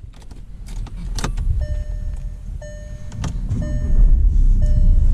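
Inside a car: clicks and jingling keys, then the car's warning chime repeating about once a second. A low engine rumble swells up about four seconds in.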